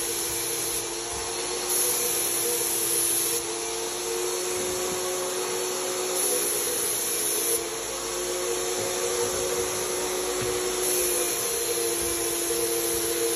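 HVLP turbine paint sprayer running with a steady whine and a rush of air through the hose. The spray gun's hiss switches on and off several times as the trigger is pulled and released.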